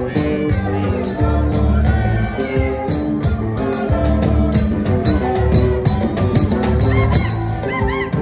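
A band playing an improvised groove: held keyboard chords over a bass line and a drum kit keeping a steady beat, with a few short pitch sweeps near the end.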